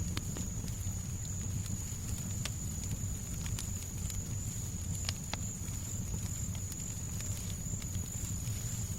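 Fireplace fire crackling, with scattered sharp snaps and pops over a steady low rumble and hiss, and a thin high tone held beneath.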